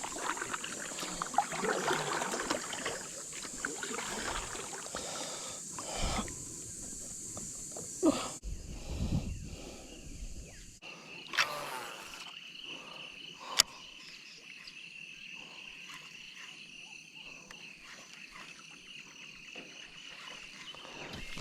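Insects droning steadily, a high-pitched drone that gives way to a lower one about eleven seconds in. A few sharp clicks or knocks from the boat and fishing gear stand out above it.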